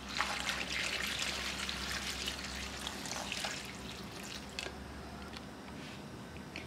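Water being poured in a steady stream into a steel pot of chopped onions, splashing over the onion pieces. The pour eases off about four seconds in, leaving a fainter trickle.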